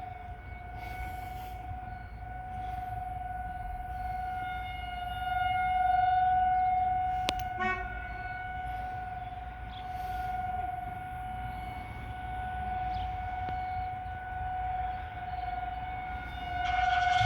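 Federal Signal 2001-DC 12-port outdoor warning sirens sounding a steady tone in a monthly test, the level swelling and fading every few seconds as the rotating siren heads sweep past.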